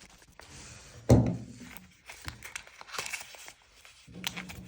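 Plastic packaging crinkling and rustling as camera accessories are unwrapped and handled, with one solid thunk about a second in and scattered light clicks after it.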